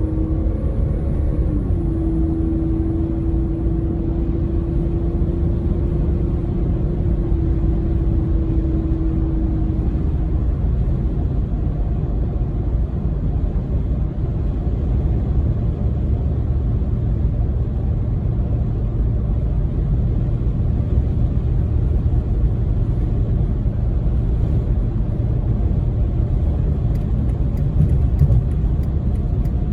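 2004 BMW 325ci's inline-six engine and road noise while driving: a steady low rumble, with a steady hum in the first ten seconds or so that then fades.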